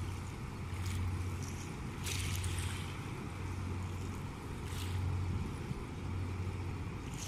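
Low steady drone of a Viking river cruise ship's engines passing on the river, swelling and easing. Small waves splash against the bank a few times.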